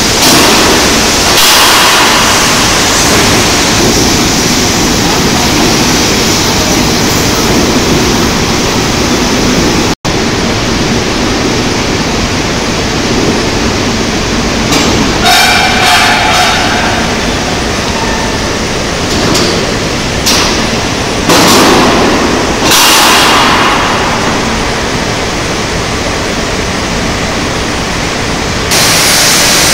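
Loud, steady industrial noise from a billet caster's runout roller table and cooling bed carrying red-hot steel billets. In the second half there is a brief squeal and a few sharper metallic clanks.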